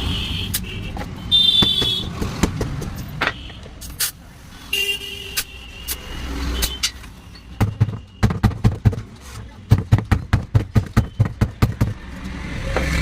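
Low traffic rumble with a brief horn toot early on, then a quick run of sharp knocks, about four a second, for some four seconds in the second half.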